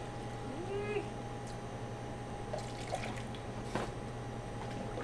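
Coffee poured from a mug into a measuring cup and tipped into a measuring jug, with a few light knocks and clinks of the cups in the second half. A steady low hum runs underneath.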